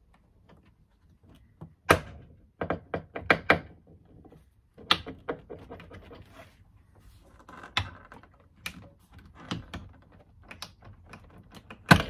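Blue plastic trim tool prying a plastic trim panel off a Mercedes SL R230, prising the trim clips loose. A string of sharp knocks and clicks, a quick run of them about three seconds in and a loud one at the end.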